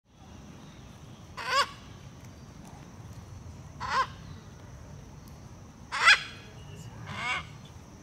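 Macaws squawking: four short calls spaced one to two seconds apart.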